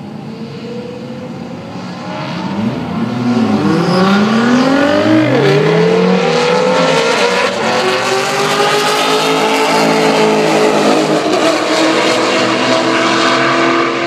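Two high-performance cars racing side by side at full throttle, their engines growing loud from about three seconds in. The engine pitch climbs and drops sharply about five seconds in, then the cars keep on as a loud, steady drone.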